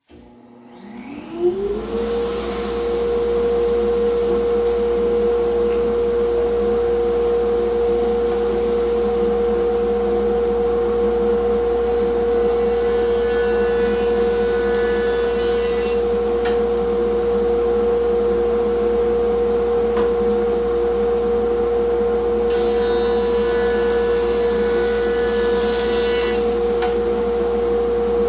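A 6-inch jointer and a 1.5 HP dust collector starting up: the motors spin up over about two seconds, then run together with a loud, steady hum. Twice, for three or four seconds each, a rougher, higher sound joins in, as boards are fed over the jointer's new knives.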